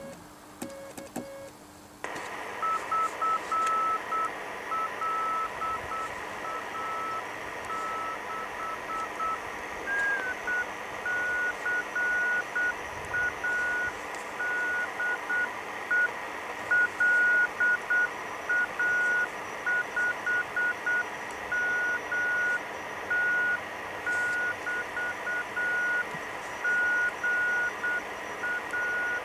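Morse code (CW) heard on a WW2 German Torn.Fu.b1 radio's receiver: a keyed beeping tone over steady receiver hiss, the answering station LA5MT replying to the call. The hiss comes in suddenly about two seconds in with a fainter Morse signal; about ten seconds in the tone glides slightly higher and the keying gets louder and clearer.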